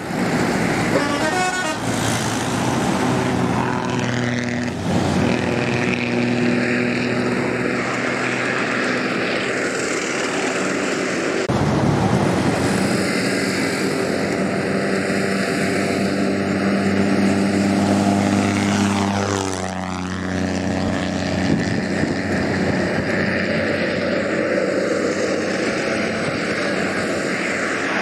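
Diesel bus engines running as buses drive past, with a rapidly pulsing horn in the first two seconds. The engine pitch dips and climbs again about two-thirds of the way through.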